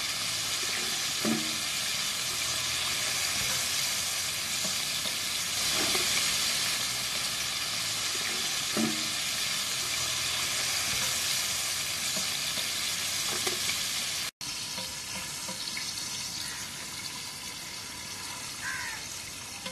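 Coated chicken pieces deep-frying in a wide steel pan of hot oil over a wood fire, a steady sizzle, with a few light knocks of the ladle as the pieces are stirred. The sizzle breaks off for an instant about two-thirds through and goes on quieter.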